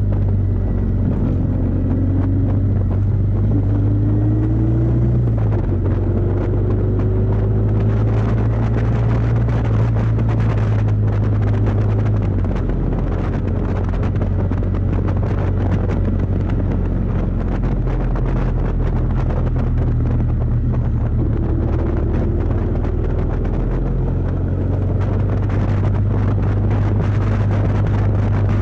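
Kawasaki VN750 Vulcan's V-twin engine running under way, with wind noise on the microphone. Its note rises as it accelerates near the start and again about three-quarters through, and shifts in pitch a few times in between.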